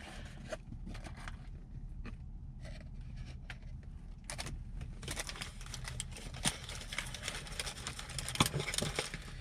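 Paper food wrapping and bag rustling and crinkling in light, irregular crackles as a fast-food sandwich is taken out and unwrapped by hand, getting busier about halfway through, over a low steady hum.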